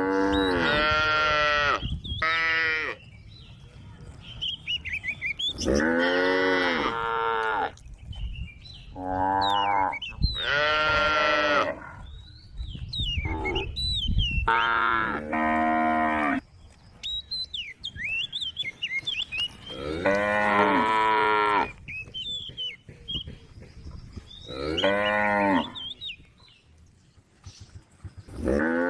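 A group of cows mooing, one long call after another, about ten calls with short pauses between them.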